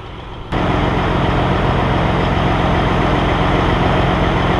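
A Peterbilt 362 cabover's Caterpillar 3406B diesel running steadily at a low, even speed. It comes in suddenly about half a second in and holds level after that.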